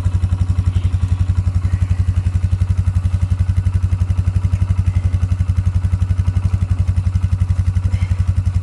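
ATV engine idling close by, a steady, rapid, even low throb.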